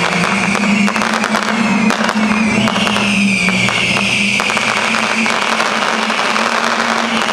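Fireworks crackling densely and continuously, many small bangs in quick succession, over a steady low tone.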